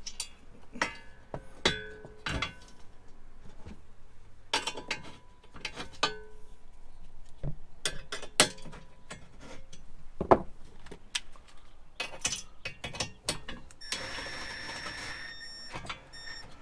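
Metal clicks, taps and clinks from hand tools working a 3/8 button head screw into a roll bar clamp, some with a short metallic ring. A steadier scraping noise runs for about two seconds near the end.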